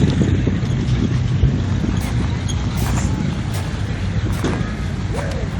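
An engine running with a steady low rumble, with a few faint clicks over it.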